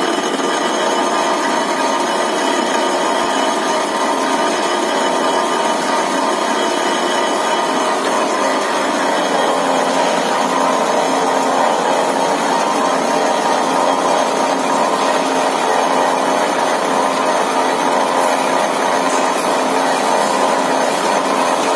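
Old metal-turning lathe running steadily, its four-jaw chuck spinning a metal workpiece, a continuous mechanical din with a rubbing, sawing-like edge.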